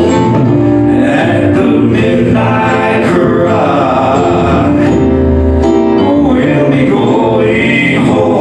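Live gospel song: men singing over a band with acoustic guitar and keyboard.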